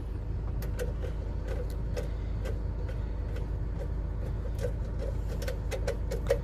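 Light, irregular clicks and ticks of a screw being driven by hand and plastic parts of a car radio being handled, about two or three a second, over a steady low hum.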